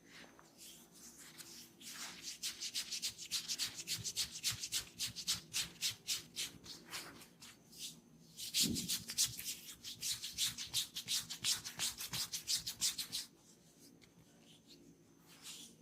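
Hands rubbing briskly in fast, even strokes, about five a second, on skin or hair during a head and ear massage. There is a short break about seven seconds in, and the rubbing stops about thirteen seconds in.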